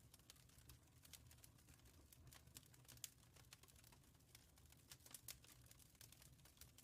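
Faint crackling of a fireplace fire: irregular small pops and snaps, several a second, over a low steady rumble.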